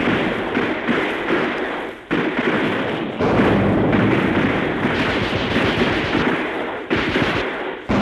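Modern battle background from an old sound effect record: dense continuous gunfire and explosions, with sudden fresh blasts about two seconds in, about three seconds in and near the seven-second mark.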